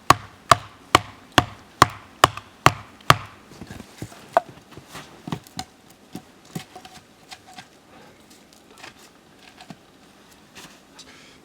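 Sharp blows on wood, about eight in quick succession, two or three a second, over the first three seconds while a wooden fire frame is being built. Then softer, scattered knocks and handling of sticks.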